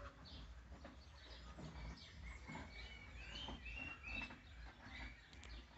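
Small birds chirping faintly, with a few short whistled notes in the middle, over a low background rumble.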